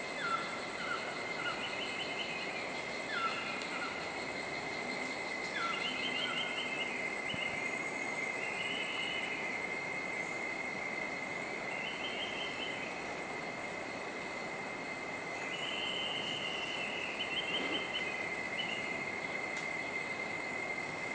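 Tropical forest ambience: insects keep up a steady high drone while a bird gives short trilled calls every few seconds, with a few brief falling whistles in the first seconds.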